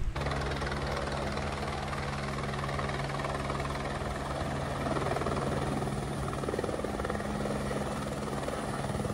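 Helicopter flying in low and coming down to land, its rotor beating steadily.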